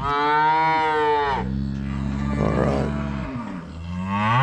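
Cattle mooing in three calls: a high arching moo at the start, a lower drawn-out moo, then a moo rising in pitch near the end.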